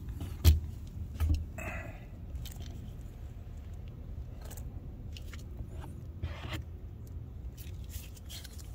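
Hand tools working the sway bar link nut: a sharp metal click about half a second in, a short squeaky scrape near two seconds, and scattered light clicks and scrapes of a ratchet and Allen key against the link's bolt.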